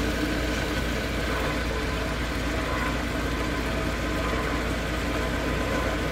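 Multi-wheel lapidary cabbing machine running steadily: its electric motor hum and spinning grinding wheels, with no stone held against them.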